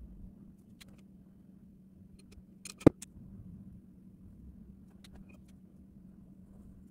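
Pen tip ticking lightly on paper while drawing, with one sharp tap about three seconds in, over a low steady hum.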